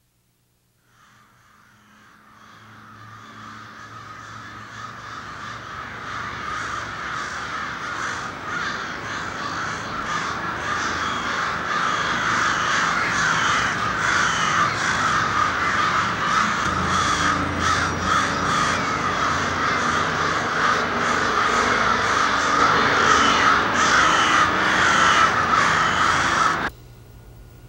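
A large flock of birds calling all at once in a dense, continuous din of overlapping calls. It fades in over the first several seconds, grows steadily louder, and cuts off abruptly near the end.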